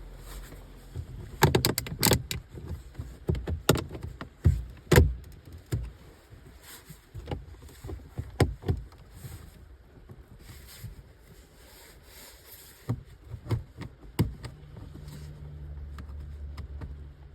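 Prying tools working at a car door's window switch panel: irregular sharp clicks and knocks, thickest in the first few seconds and sparser after. A low steady hum comes in near the end.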